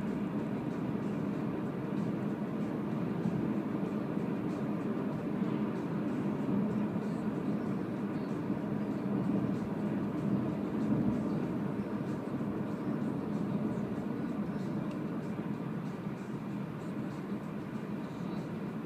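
Steady rumble of tyre and road noise heard inside the cabin of a Renault ZOE electric car driving at speed, with no engine sound.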